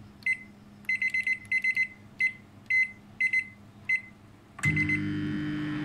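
Microwave oven control dial beeping as the timer is turned up to two minutes: short, high chirps, sometimes several in quick succession. About four and a half seconds in, a final beep sounds and the oven starts cooking with a steady low hum.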